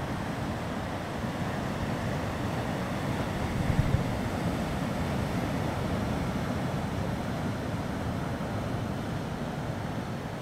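Sea surf breaking and washing over rock ledges at the foot of a cliff, a steady rush of water with light wind buffeting the microphone, briefly louder about four seconds in.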